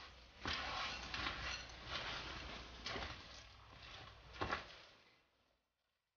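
Spatula scraping and stirring through thick cheesecake filling in a glass bowl, folding in crushed peppermint candies, with a few sharp taps of the spatula against the bowl. The stirring stops about five seconds in.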